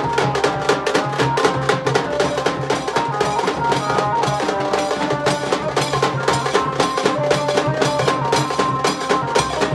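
Nashik dhol band playing: drums beating a fast, steady rhythm of dense strikes, with a melody of held notes moving step by step above them.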